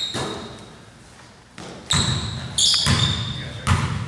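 Basketball bouncing on a gym floor, with sharp thuds that ring in the large hall, and sneakers giving several short high squeaks on the floor. It is quieter for about the first second and a half, then the bounces and squeaks pick up.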